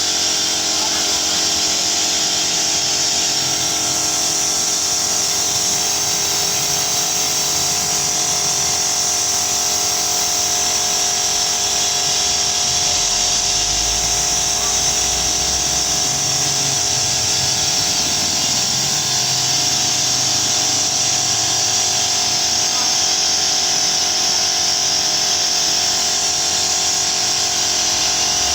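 A motor-driven machine running steadily with a strong high hiss, like rushing air, without a break.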